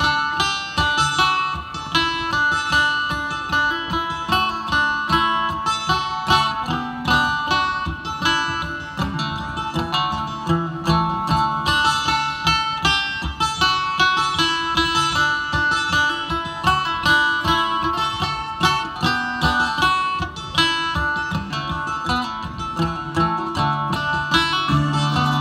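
Live acoustic string band playing a fast old-time tune through a PA, with banjo picking among plucked strings in a quick, steady stream of notes.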